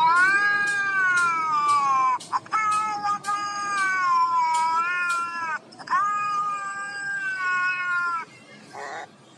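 Cat yowling in two long, drawn-out calls, the first about five and a half seconds long and the second about two and a half, each sliding slowly down in pitch. A series of sharp clicks runs through the first call.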